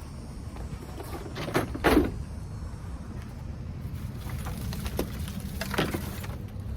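A few sharp knocks and clunks of objects being handled inside a truck, the loudest about two seconds in, over a steady low rumble.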